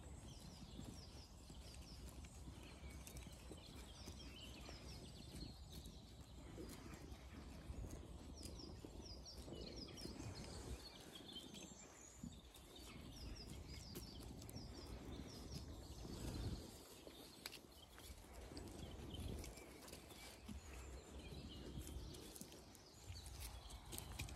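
Quiet outdoor farm sound of Zwartbles ewes eating feed, with soft clicking from crunching and hooves shuffling. Faint bird chirps and a low rumble of wind run underneath.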